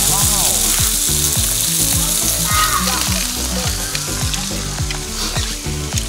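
Pork belly sizzling on a portable gas grill plate, a steady hiss of frying fat, over background music with a steady beat.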